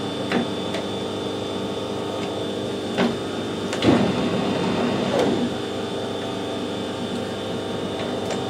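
Metal lathe's geared headstock running at a low spindle speed, with a steady hum and whine. A few sharp knocks come in the first half, the loudest about four seconds in.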